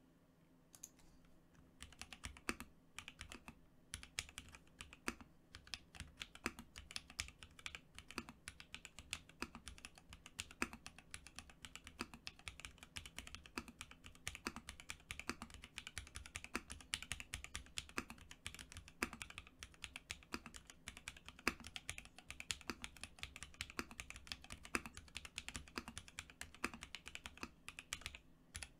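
Typing on an E-White Prophet 60% mechanical keyboard with lubed Alpaca v2 linear switches on a polypropylene plate: a steady run of quick keystrokes that starts about a second and a half in. A deeper stroke stands out about every second and a half.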